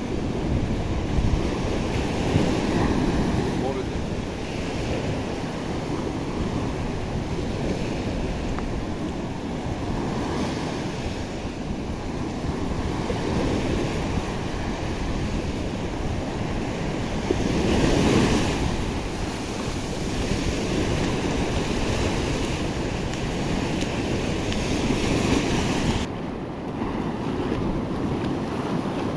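Sea surf breaking and washing up a sandy beach, rising and falling in swells every few seconds with the biggest surge about two-thirds of the way through, with wind rushing on the microphone.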